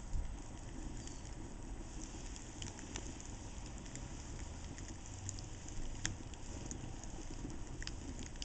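Charcoal fire with a marshmallow burning in the embers: small flames hiss over a low rumble, with scattered small crackles and pops. A few sharper pops come in the second half.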